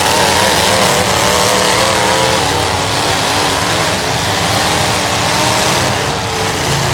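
Demolition derby cars' engines running and revving, their pitch wavering up and down over a dense, steady din of motors.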